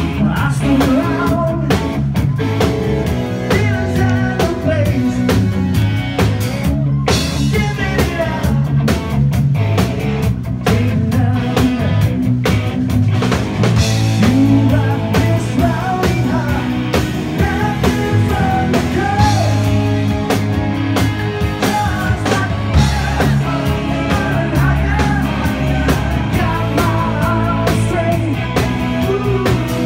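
Live rock band playing loud: drum kit, electric bass and guitar, with a man singing.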